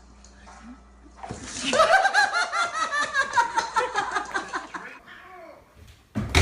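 A person laughing hard in quick repeated bursts for about three and a half seconds, starting about a second in. A sudden loud knock comes near the end.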